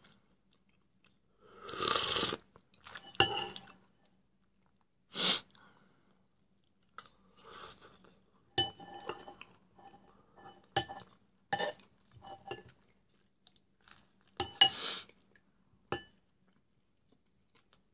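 Close-up eating sounds: soup taken noisily off a metal spoon, the man chewing soup and bread, and a metal spoon clinking against the bowl several times in the middle, each clink ringing briefly.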